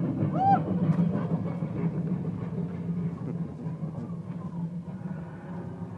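Steampunk train sculpture's locomotive sound effect switching on abruptly and running steadily as a loud, low, dense machine noise.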